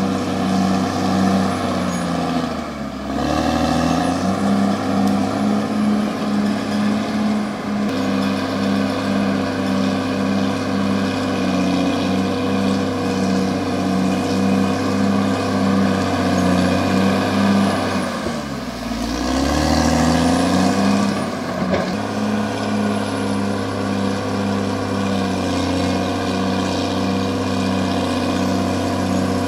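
Caterpillar D6R XL bulldozer's diesel engine running hard with a steady pulsing beat. Twice, about three seconds in and again around nineteen seconds, the engine note drops and then climbs back up.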